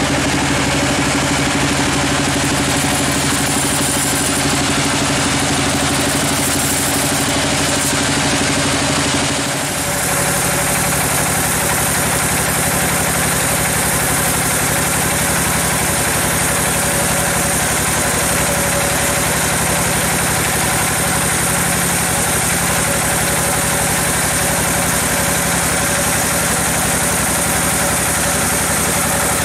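Log bandsaw mill running as its blade cuts through a giant teak log: a steady machine hum under a dense sawing hiss. About nine and a half seconds in, the sound dips briefly and the hum shifts to a different pitch, then carries on steadily.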